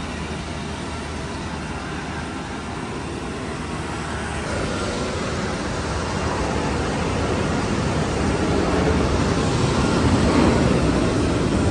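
Steady jet aircraft noise on an airport ramp, an even rushing sound with a faint steady tone in it, growing gradually louder from about four seconds in.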